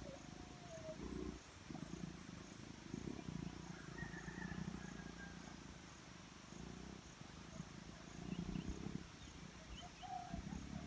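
Black-chinned fruit dove giving low coos in several short bouts, with faint chirps from other birds and a steady high insect ticking in the background.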